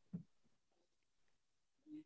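Near silence: a pause in a call, with two brief faint sounds, one just after the start and one near the end.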